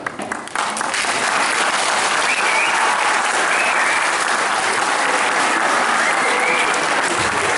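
Audience applauding. The clapping breaks out suddenly, swells within the first second and then holds steady.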